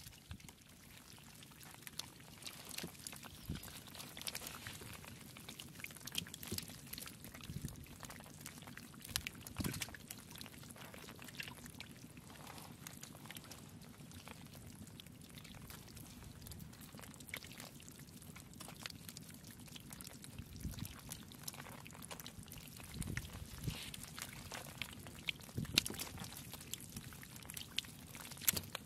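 Catfish flopping on wet mud, making irregular wet slaps and splashes over a trickle of water.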